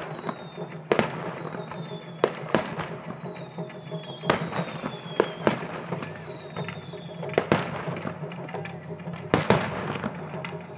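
Fireworks display: about a dozen sharp bangs of bursting shells at uneven spacing, with several high whistles sliding down in pitch through the first seven seconds or so.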